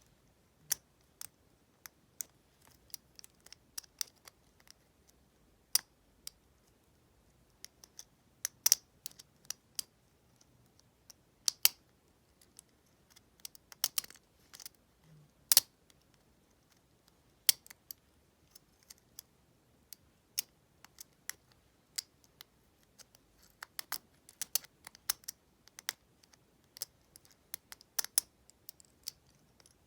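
Lock pick and tension wrench working in the cylinder of a double-cylinder deadbolt: irregular sharp metallic clicks and ticks as the pick probes and lifts the pins, some pauses of a second or two between them.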